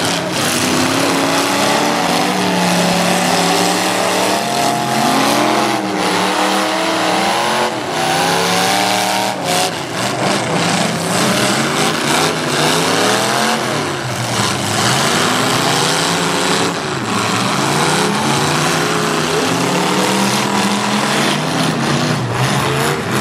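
Several demolition derby car engines revving hard at once, their pitches rising and falling over one another, over a steady haze of engine and tyre noise.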